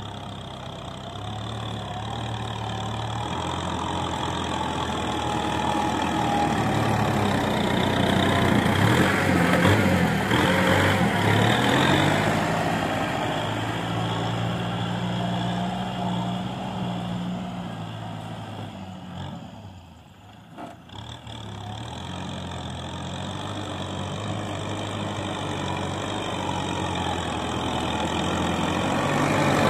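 Farm tractor engine running as it pushes soil with a front blade. It grows louder as the tractor comes close, and its note rises and falls a few times. The sound drops sharply about twenty seconds in, then builds again.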